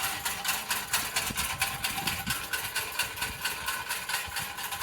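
Strong wind buffeting the microphone in rumbling gusts, with a fast, even flutter of about four or five beats a second.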